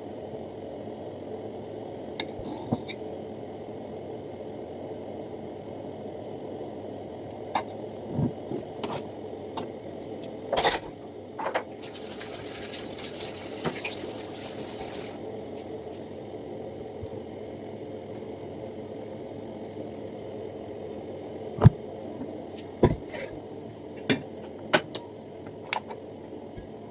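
Kitchen cooking sounds: a pot bubbling steadily on the stove, with scattered clinks and knocks of utensils or pans. About twelve seconds in, a brief hiss lasts a few seconds.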